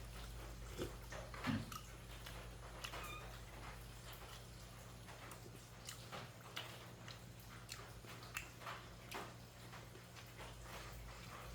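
Close-miked eating sounds: scattered wet smacks and clicks of chewing, with a couple of brief squeaks.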